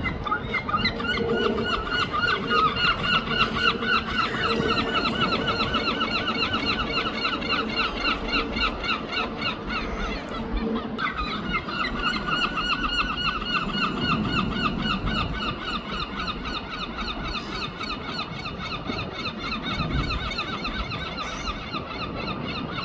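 Seagull calling in a long, rapid run of repeated high squealing notes, pausing briefly about ten seconds in and then starting up again.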